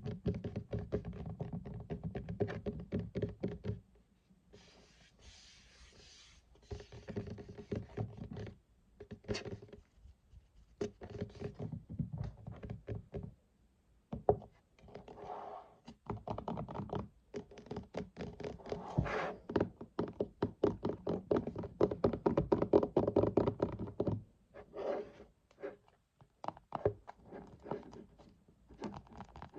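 Fingers and nails tapping rapidly on a desk in quick flurries with short pauses, with a brief stretch of scratching about five seconds in.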